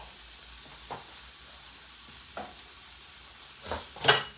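Mixed vegetables sizzling steadily in a frying pan, with a few short clicks and a louder metallic clink near the end.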